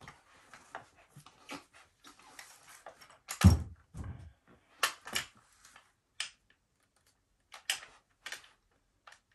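MiRiDER One folding electric bike being unfolded by hand: scattered clicks and rattles from the frame, hinge and chain, with one heavy thump about three and a half seconds in and a few sharper clicks after it.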